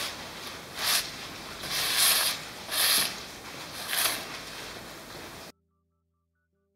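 Leather-gloved hand rubbing across a solid steel welding-table plate, four brushing strokes about a second apart. The sound cuts off suddenly a little past five seconds.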